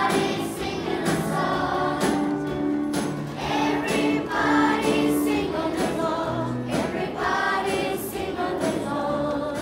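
A choir of children's voices singing a song, joined by the seated audience singing along from song sheets, over an accompaniment with a steady beat about once a second.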